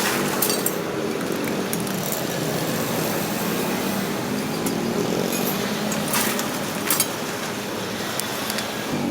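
Street traffic with small engines running, motorbike-like, under a steady hum of noise, and a few sharp clatters about six and seven seconds in.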